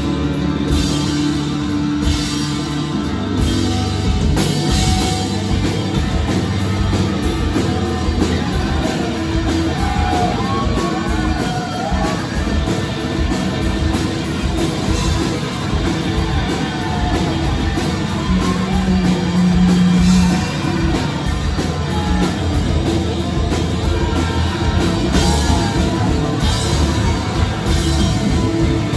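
Live rock band playing loud: electric guitars, bass guitar and a drum kit in a dense, steady full-band mix.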